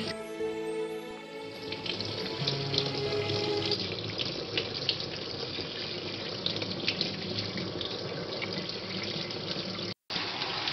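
Kitchen tap running into a stainless-steel sink, the water splashing over food being rinsed under the stream. Soft background music plays underneath, and the sound drops out for a moment near the end.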